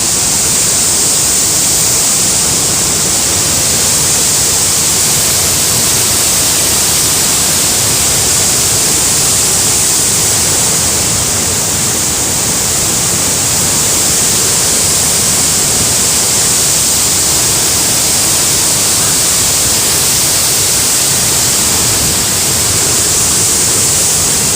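Loud, steady rush of fast-flowing floodwater, an unbroken noise with no distinct splashes or pauses.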